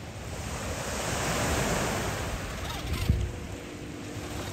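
Waves washing onto a beach, the noise swelling and fading, with wind on the microphone. About three seconds in there is a single knock, followed by a faint steady whine from the RC crawler's electric drive as it climbs onto driftwood.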